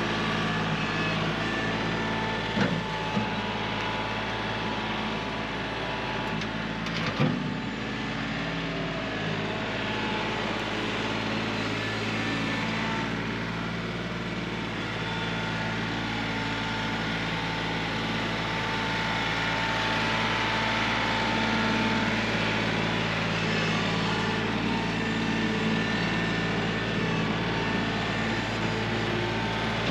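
An engine running steadily, with a few short knocks about three and seven seconds in.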